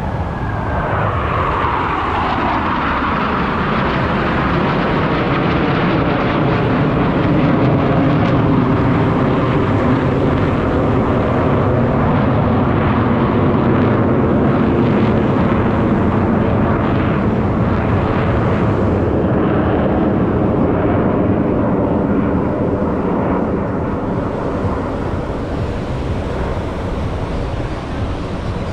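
Blue Angels F/A-18 Super Hornet fighter jets' engines in flight: a falling pitch as a jet passes in the first couple of seconds, then a long, loud, steady jet roar that eases slightly near the end.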